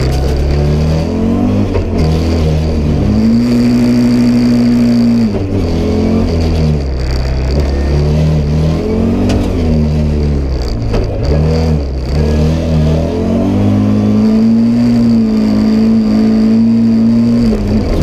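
Turbocharged five-cylinder engine of an Audi Sport Quattro S1 rally car, heard from inside the cabin, revving up and down repeatedly through gear changes. Twice it holds high revs steadily, for about two seconds a few seconds in and for about four seconds near the end.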